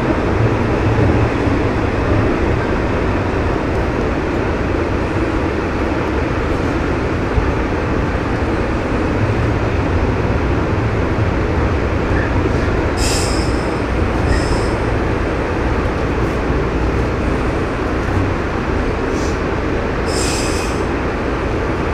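JR West 103 series electric train running along the line: a steady rumble of wheels on rail. A few short high-pitched squeals come about two-thirds of the way through and again near the end.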